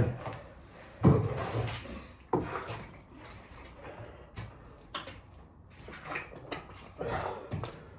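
A few heavy thuds of feet and body on an exercise mat at the end of a burpee set, then lighter clicks and knocks as a plastic water bottle is picked up and drunk from.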